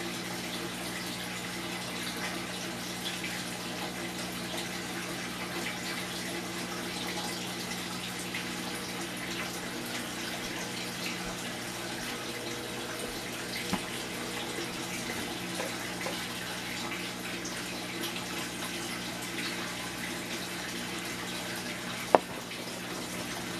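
Rain falling steadily during a thunderstorm, a continuous hiss, with a steady low hum underneath. A single sharp click comes near the end.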